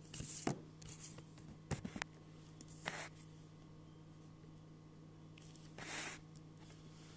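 Handling noise of a phone being moved and set up: scattered rustles and light knocks against its microphone, with a longer rustle about six seconds in. A faint steady hum sits underneath.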